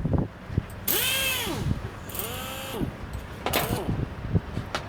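A small motor spun up twice, each time a whine that rises and falls away, followed by a few sharp clicks.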